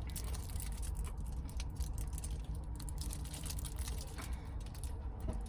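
Close-up eating sounds of a foil-wrapped burrito: faint crinkling and small clicky chewing noises over a low steady rumble.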